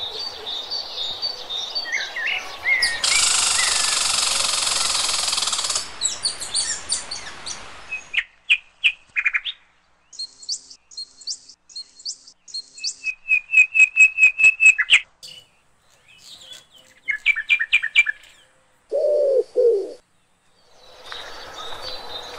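Birds chirping and calling, a string of short chirps and quick trills at several pitches one after another. A loud hiss lasts about three seconds early on, and a low two-note call comes near the end.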